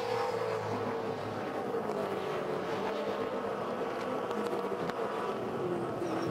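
Holden Commodore V8 Supercar's 5.0-litre V8 engine running at high revs on track, its note easing slowly down in pitch.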